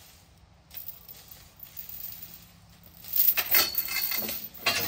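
Steel binder chain rattling and clinking as it is handled and thrown over a load of logs on a truck, growing loud about three seconds in with a dense run of metal-on-metal clinks and some ringing.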